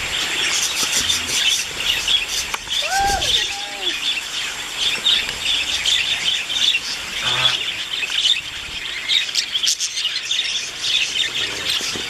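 A flock of budgerigars chattering and warbling continuously in fast, high chirps, with one louder, lower arching call about three seconds in.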